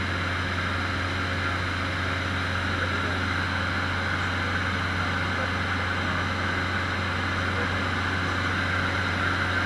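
Cessna 150's four-cylinder Continental O-200 engine and propeller droning steadily in flight, heard from inside the cabin with a strong low hum.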